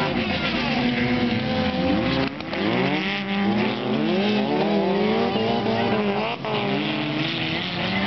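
Several two-litre class autocross cars racing on dirt, their engines revving hard and overlapping. The engine pitch climbs and falls again and again, with short drops about two and a half seconds in and again near six and a half seconds.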